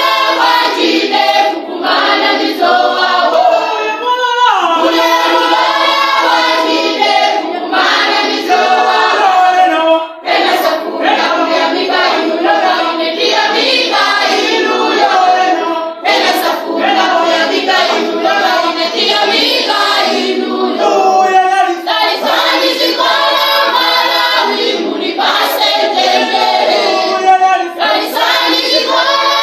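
A church congregation of women and girls singing a praise song together, many voices at once, steady and full throughout.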